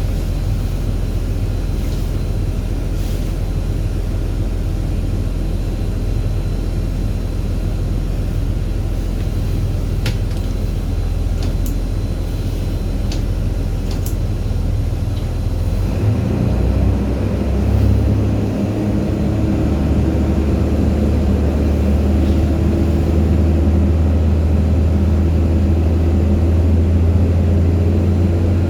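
Steady low rumble of ramp machinery during the pushback of an Airbus A300-600. About 16 seconds in, the sound changes: new steady humming tones join and it grows a little louder.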